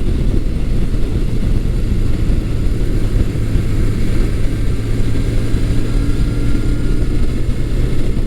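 1982 Suzuki GS750E's air-cooled inline-four engine running steadily under way, now pulling on all four cylinders after bogging.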